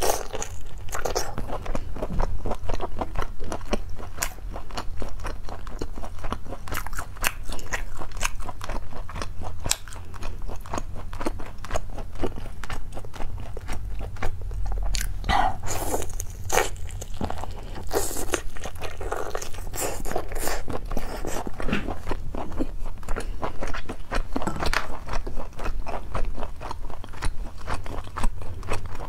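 Close-miked eating of skewered lobster meat: biting and chewing with a dense, irregular run of small crunching clicks and mouth smacks, over a steady low hum.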